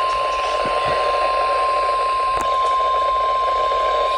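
NOAA Weather Radio warning alarm tone: one steady, high tone held without a break over a hiss of radio static, announcing a tornado warning.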